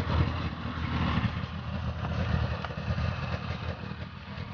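Motor vehicle engine running steadily under way, a low drone with road or track noise.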